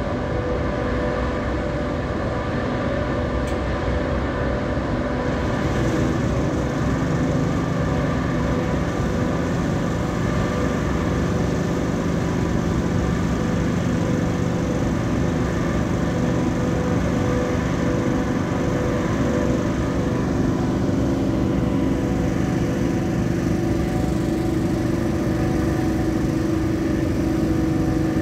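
Large ferry's diesel engines running with a steady drone and several held tones; about six seconds in a deeper tone joins and grows stronger towards the end.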